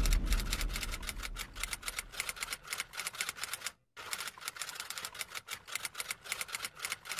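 Typewriter keystroke sound effect: a fast, even run of sharp clicks, about five a second, with a brief pause a little before halfway. Under the first clicks, the low tail of music fades out.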